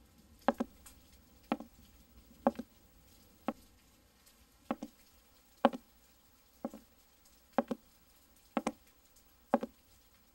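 Slow footsteps, about one a second, ten in all, each a sharp knock followed closely by a softer one.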